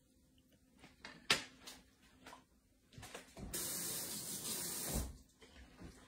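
A few light clinks of a knife and fork being set down on a plate, the sharpest about a second in, followed by a steady hiss lasting about a second and a half.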